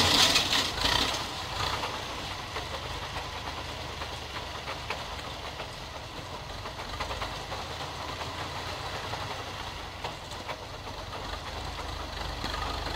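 IMT 577 tractor's diesel engine running steadily under load while it drives a MASINO rotary power harrow through ploughed soil. The sound fades over the first second or so, then holds even.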